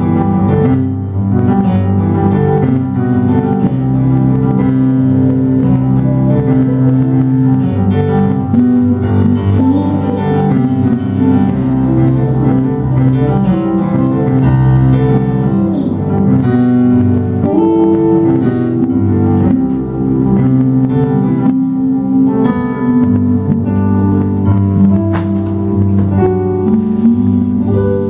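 Live instrumental music: an electronic stage keyboard playing a piano sound together with an electric guitar.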